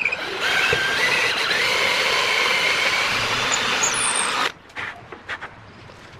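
Electric hand drill running under power for about four seconds with a high whine that steps up in pitch after about a second and a half, then cutting off abruptly, followed by a few light clicks.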